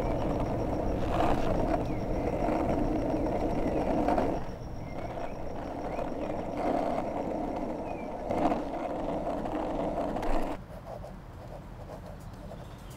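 Skateboard wheels rolling over rough asphalt, a steady rumble with a few brief louder swells, quieter after about four seconds. It cuts off about ten seconds in, leaving quiet room tone.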